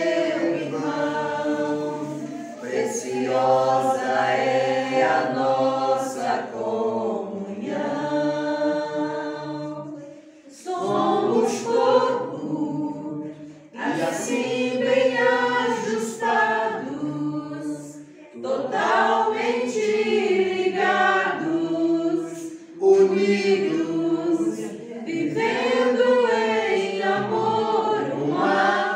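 Unaccompanied singing of a worship song, with a woman's voice carrying the melody in long phrases broken by short breaths.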